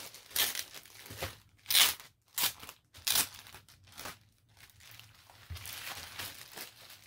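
Clear plastic packaging bag crinkling as it is pulled open and handled: several short, sharp crackles about a second apart, the loudest almost two seconds in, then a softer, longer rustle near the end.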